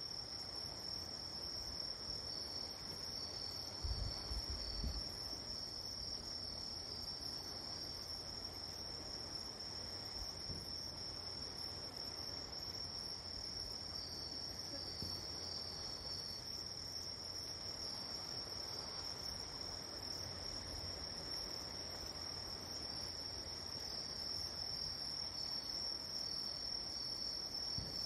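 Singing insects at night: a steady high-pitched trill, with a second insect's pulsed chirping coming and going several times over it. A low thump about four seconds in.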